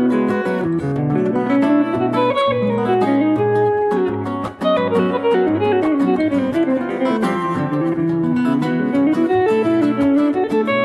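Acoustic guitar music: quick plucked notes in rising and falling runs over a bass line.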